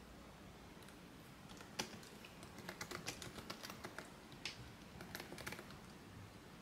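Faint, irregular light clicks and taps, coming quickly one after another from about two seconds in.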